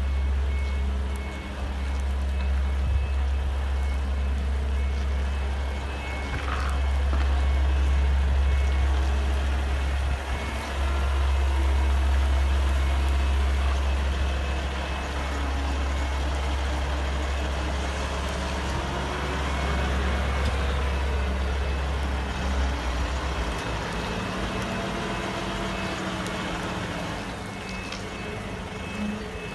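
Heavy-haul truck pulling a 75-tonne box girder on a multi-axle trailer: its diesel engine runs with a deep, steady rumble that falls away about three-quarters of the way through. Throughout, a vehicle warning beeper sounds in a steady, repeating beep.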